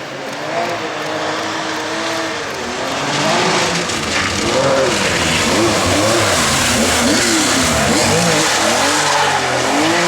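Rally car engine revving hard, its pitch rising and falling again and again as the driver works the throttle and gears, over a steady hiss. It grows louder over the first few seconds as the car comes closer.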